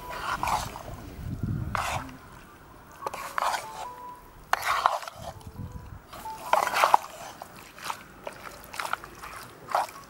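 Wooden spatula mixing raw chicken pieces with spice powder in a nonstick pan: a series of irregular short, wet strokes of the spatula through the meat.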